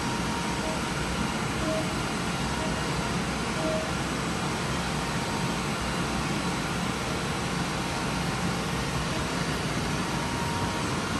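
DMG Mori HSC 20 Linear high-speed machining centre running an automatic machining program: a steady whir of the spindle and machine with a faint high whine, and a few brief tones in the first few seconds.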